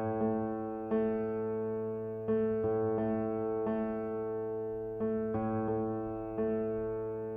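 Keyboard music, an electric-piano sound playing held chords, with a new chord or note struck about every second.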